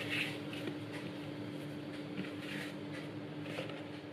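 Quiet room tone with a steady low hum and a few faint, soft rustles from handling the dough and the plastic container.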